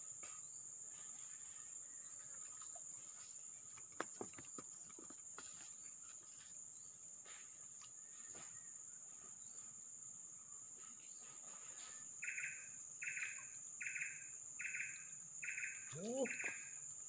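Forest insects keeping up a steady high-pitched drone. From about twelve seconds in, a lower pulsing call joins, repeating roughly every three-quarters of a second.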